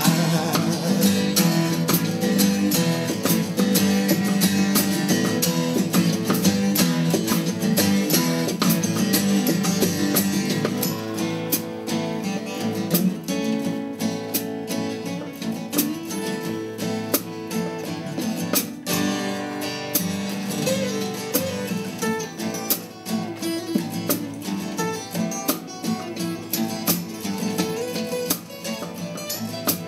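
Acoustic guitars strumming and picking an instrumental passage of a folk-rock song, with no singing.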